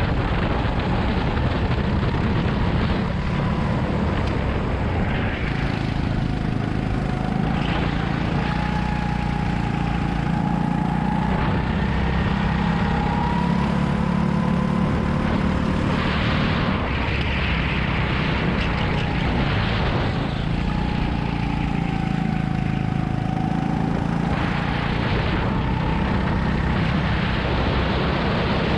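Go-kart engine running at speed in onboard sound, its pitch rising and falling repeatedly as the kart accelerates and slows through corners, over a steady rush of noise.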